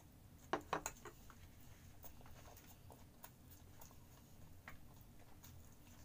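A short cluster of sharp knocks about half a second in, as a metal spoon is set down in a small ceramic bowl, followed by faint scattered clicks of eating by hand and chewing.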